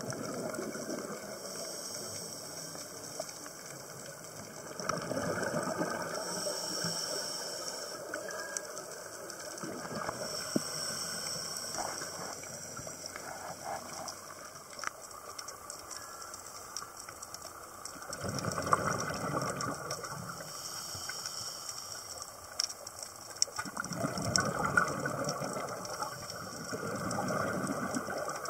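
Scuba diver's exhaled bubbles gushing from the regulator in swells roughly every five to six seconds, heard underwater through the camera, with scattered sharp clicks between them.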